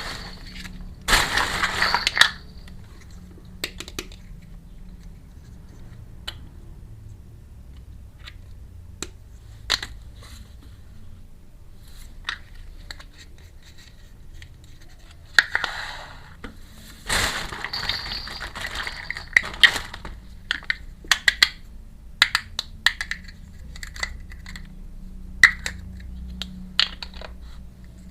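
Small miniature toy kitchen pieces clicking and clinking as they are handled, with a few short bursts of rustling packaging.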